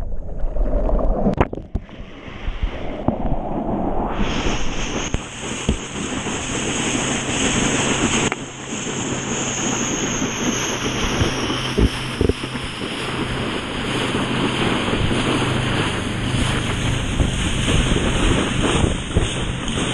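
Lake water rushing and spraying under a knee board being towed behind a motorboat, with wind buffeting the GoPro microphone. For about the first four seconds the rider is floating and it is quieter and uneven; then the tow pulls the board up and a steady, loud rush of water and wind sets in.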